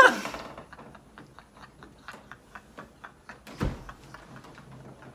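Hairspray-stiffened hair crackling in small, irregular clicks as it is twisted and teased up by hand. A brief vocal sound at the very start, and a single low thump about three and a half seconds in.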